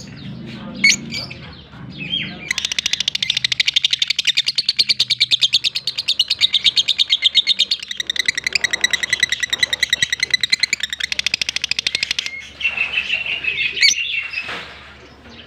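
African lovebirds chirping: a long run of rapid, evenly spaced shrill chirps lasting about ten seconds, then a softer twittering passage and a few single sharp chirps near the end.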